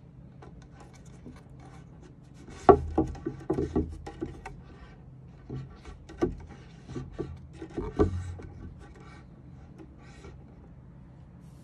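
A homemade hand drum handled close to the microphone: rubbing and scraping on its wooden hoop and hide lacing, with knocks that come loudest about two and a half seconds in and again near six and eight seconds. A few of the knocks set off a short low boom from the drumhead.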